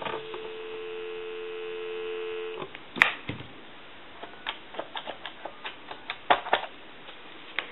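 North American telephone dial tone, two low tones sounding together, steady for about two and a half seconds and then cut off. A click follows, then a quick run of short clicks as a number is dialled on the phone's keypad.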